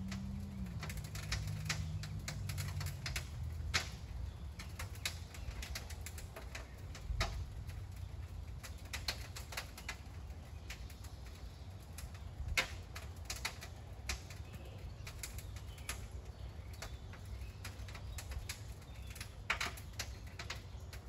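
Case steam traction engine standing fired up, smoke at the stack: a low rumble with many irregular sharp clicks and ticks, a few of them louder. A low hum of a few steady tones dips slightly about half a second in and fades out over the next few seconds.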